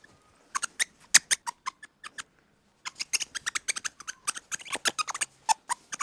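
Rapid, irregular short squeaks and clicks from a small animal, in two runs with a short pause between them.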